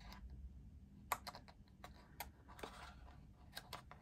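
Faint, irregular small clicks and taps of metal paper brads being fitted through die-cut mat board pieces and their prongs opened by hand.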